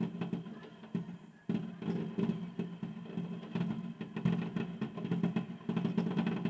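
Aerial fireworks bursting in a rapid, irregular series of bangs and crackles.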